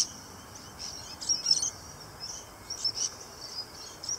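Birds chirping: short, high calls repeating about once a second.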